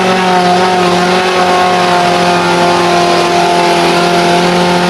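A loud, steady motor drone holding one pitch, with a hiss over it; it cuts off shortly after the end.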